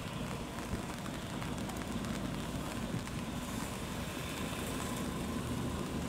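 Steady noise of wind and rain, with the low rumble of a passenger ferry's engines as it moves slowly alongside the quay.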